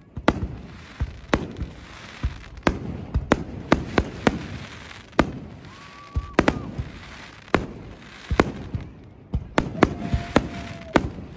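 Fireworks display: aerial shells bursting in an irregular series of sharp bangs, about two a second, with a hissing haze between them.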